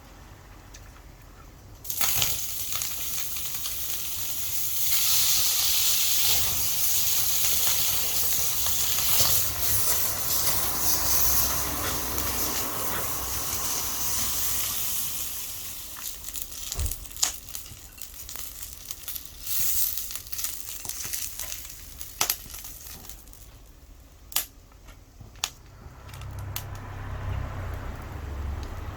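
Food sizzling hard in a hot iron frying pan over a wood fire, starting suddenly about two seconds in as something goes into the pan and easing off after about fifteen seconds. Later a few sharp crackles and pops stand out.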